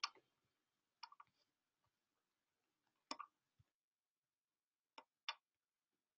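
Near silence: room tone broken by a handful of faint, short clicks spaced a second or two apart.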